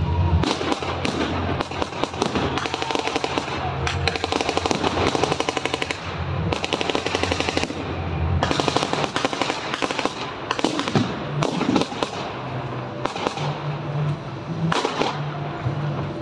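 Blank gunfire from WWII reenactors' rifles and submachine guns: single shots mixed with rapid automatic bursts, going on without a break.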